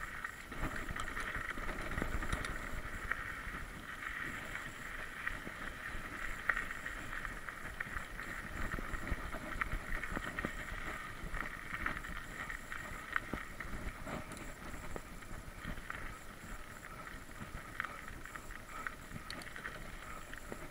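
Mountain bike ridden over a bumpy dirt trail: irregular small rattles and knocks from the bike over the ground, with wind rumbling on the microphone under a steady high hiss.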